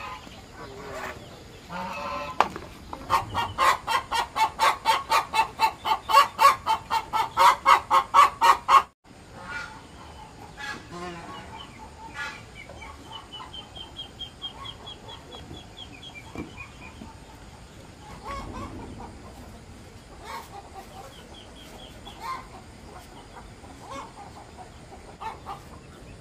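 Chickens: a hen cackling in a fast, even run of loud clucks, about three a second, for some six seconds, then a sudden cut to softer scattered clucking and a brief high, rapid trill.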